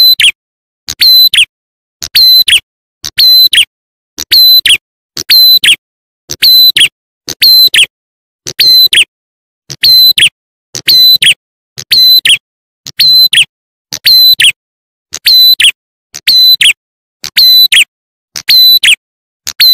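Looped lure recording of a prenjak (ciblek klawu) call: a sharp, high double chirp repeated about once a second, each repeat the same as the last.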